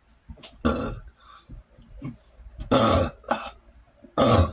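A man burping loudly three times, short burps spaced about a second and a half apart.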